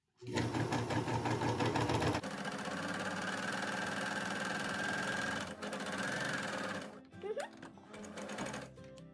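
Four-thread serger (overlock sewing machine) running at speed, stitching along the edge of a piece of fabric. It is loudest over the first two seconds and stops about seven seconds in.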